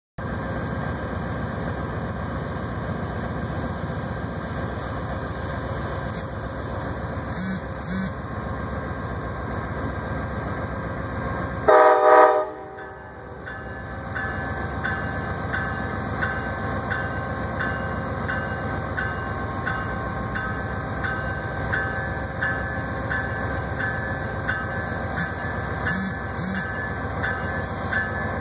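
Amtrak Genesis diesel locomotive running as the train pulls out, with one short horn blast about twelve seconds in. After the horn, the locomotive's bell rings steadily, about once every 0.7 seconds.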